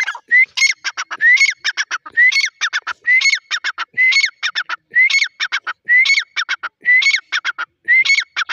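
Grey francolin (teetar) calling loudly: a phrase repeated about once a second, each a rising note followed by a quick run of three or four sharp notes.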